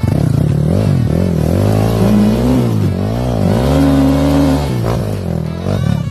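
Dirt bike engine revving up and down repeatedly as it labours up a steep, muddy trail, with several rising and falling revs and one held high for about a second past the middle.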